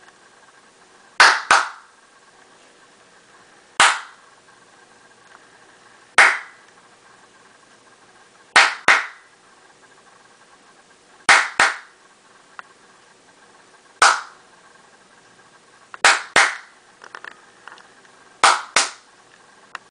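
Sharp hand claps every couple of seconds, often in quick pairs, clapped to trigger a sound-activated clapper switch that turns its LED on and off.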